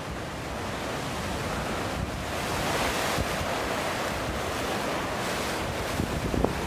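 Wind blowing hard across the microphone over a steady rush of ocean surf.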